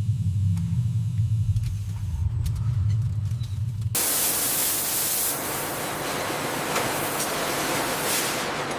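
Low, steady machinery rumble with a few faint clicks, replaced suddenly about four seconds in by a loud, even hiss like spraying or venting.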